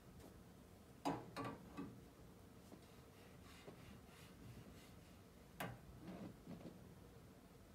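Greased brass tuning slide of a tuba being worked in and out by hand, giving a few short, light metallic clicks and knocks: three close together about a second in, then a sharper one followed by softer taps past the middle, over quiet room tone.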